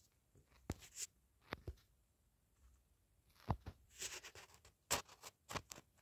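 A few light, scattered clicks and taps, with a short scratchy rustle a little after the middle.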